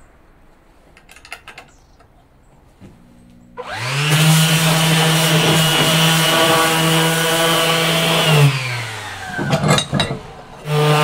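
Makita cordless random orbital sander sanding a metal guitar-pedal enclosure. It starts about three and a half seconds in, rises to a steady whine for about five seconds, winds down, gives a few clicks, and starts up again near the end.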